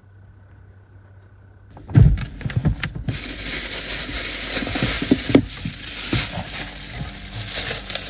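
Clatter of a pan and utensils, then food sizzling and crackling in a frying pan from about three seconds in, with knocks through it. The sizzle stops suddenly near the end.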